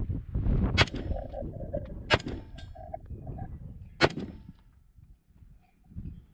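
Three AR-15 rifle shots over about three seconds, the first two each followed by a short metallic ring from a steel target being hit.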